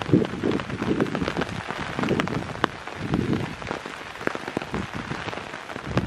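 Heavy monsoon rain falling steadily, with single drops ticking sharply close by and uneven low thumps coming and going.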